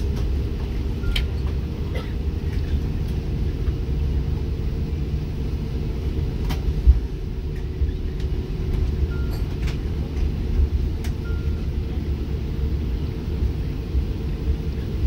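Airbus A330 cabin noise as the airliner rolls off the runway and taxis after landing: a steady low rumble with a faint hum, and a few light clicks and rattles scattered through it.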